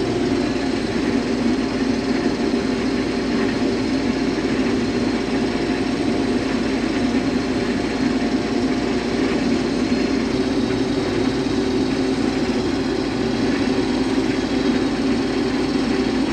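Case IH Axial-Flow combine running steadily under way in a wheat field, a constant, even hum of engine and machinery.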